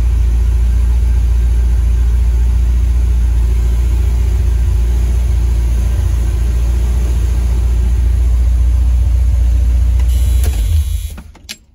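1976 Corvette Stingray's small-block V8 running steadily at idle on its first cold start after a Quadrajet carburetor rebuild, heard from inside the cabin. Near the end the engine sound drops away sharply, with a few clicks.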